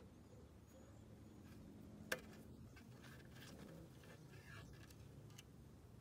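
Near silence with a few faint clicks and ticks, one sharper click about two seconds in: the plastic oil dipstick being unscrewed and drawn out of a Honda Ruckus 50 scooter engine.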